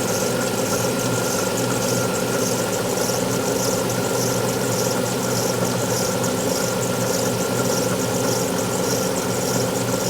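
Alfa Romeo 156 V6 engine idling steadily after a cold start, with a constant high whine and a high-pitched pulsing noise repeating about once a second: the abnormal cold-start noises.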